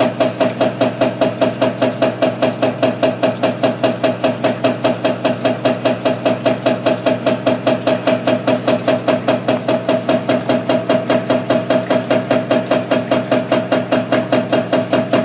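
Motor-driven wave concentrating table running, with a steady hum and an even, rhythmic knock about five times a second from the drive that rocks the wet deck.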